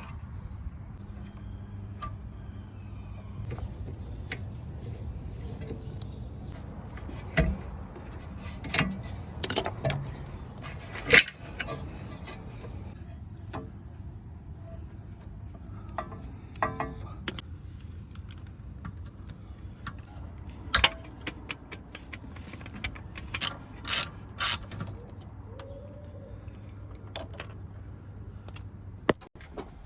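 Metal tools clicking and clanking against car parts at irregular intervals, with a few louder knocks, over a steady low hum.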